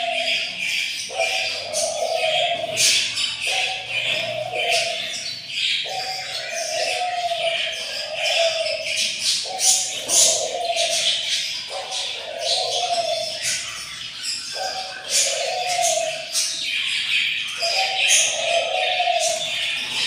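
Budgerigar chicks chirping constantly in the nest box, a dense chatter of high calls. A lower tone, about a second long, repeats every two to three seconds beneath it.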